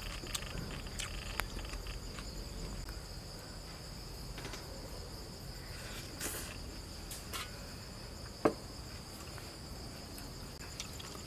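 Crickets chirring steadily, with scattered soft clicks and one sharp tap about eight and a half seconds in from eating and handling food.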